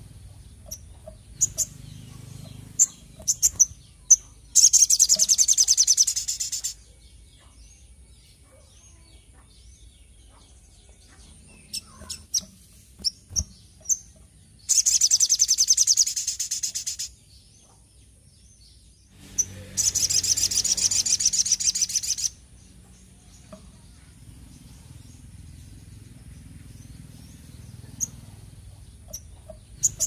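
Caged sogok ontong singing in full voice: scattered sharp, high single chirps, broken three times by loud, rapid, high trilling phrases of two to three seconds each, about five, fifteen and twenty seconds in.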